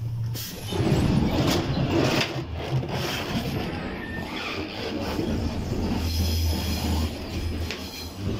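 An automatic door between the coaches of a passenger train opens at the push of its button. Less than a second in, the loud running noise of the moving train in the gangway between carriages comes in: a rumble with a few sharp knocks.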